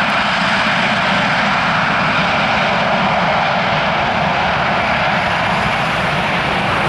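Airbus A340-313's four CFM56 turbofan engines running, a loud, steady rushing jet noise with no change in level.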